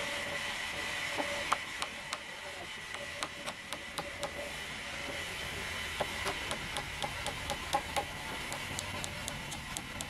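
Sawmill machinery running with a steady whine, overlaid with irregular sharp clicks and taps, several a second, from about a second and a half in.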